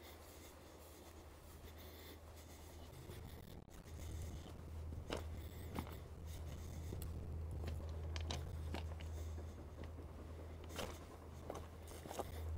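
Low, steady wind rumble on the microphone, louder from about four seconds in, with scattered soft rustles and scuffs from walking on a grassy shore path.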